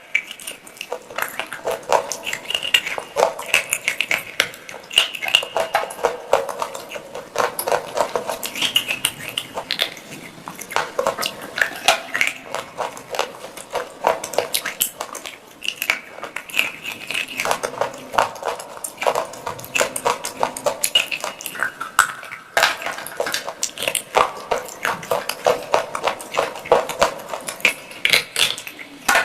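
Close-miked crunching and chewing of dry, brittle pieces of pot, a dense run of sharp crunches with a brief pause about 22 seconds in.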